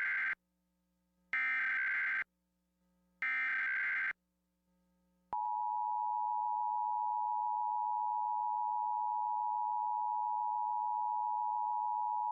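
Emergency Alert System SAME header: short bursts of warbling digital data tones, the header repeated, each burst under a second. About five seconds in, the steady two-tone EAS attention signal (853 and 960 Hz) begins and holds, announcing a nationwide test of the Emergency Alert System.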